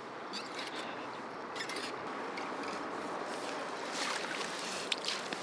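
River current rushing steadily around a wading angler, with a few brief louder splashy surges, strongest about four to five seconds in.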